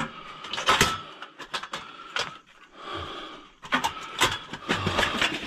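Irregular clicks, knocks and light clatter from a portable two-burner camping stove and its gas hose being handled and turned over.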